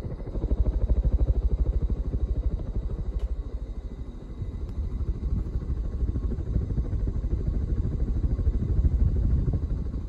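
A 1986 Casablanca Delta II ceiling fan running at speed: a low rumble with a rapid, even pulsing as the blades sweep past, from a fan whose bearings are worn and due for replacement.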